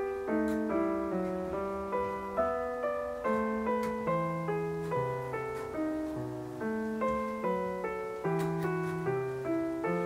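Background piano music: a gentle melody of evenly paced notes, each one fading after it is struck.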